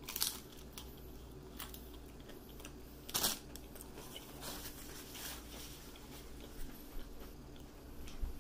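A fried taco shell being bitten and chewed: a few short, sharp crunches between quieter chewing, the loudest about three seconds in.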